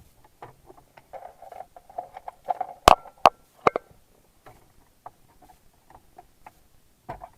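Plastic dashboard trim on an Audi being worked loose: plastic scraping and rubbing for about two seconds, then three sharp clicks as the trim clips let go, followed by light scattered ticks of plastic being handled.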